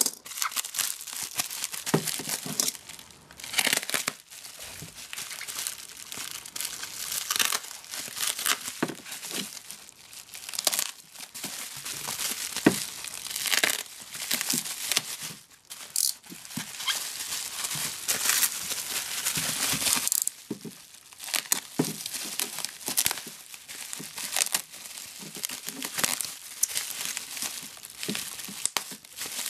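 Plastic bubble wrap crinkling as it is handled and torn open by hand, a dense, irregular run of crackles with no let-up.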